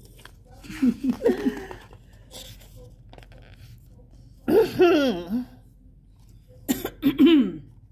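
A woman laughing in short bursts, three times: about a second in, around five seconds, and again near seven seconds.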